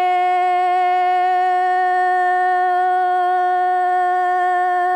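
A singer's unaccompanied voice holding one long, steady note with a slight wobble, part of a Dao páo dung folk song.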